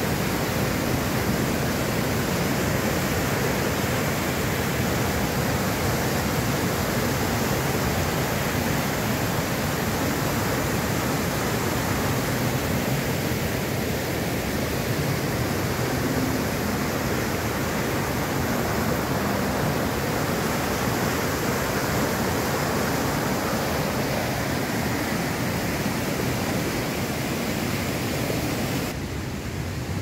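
Rain-swollen river torrent at a waterfall, muddy floodwater rushing past in a steady, loud, dense rush. Near the end the rush drops suddenly to a quieter background.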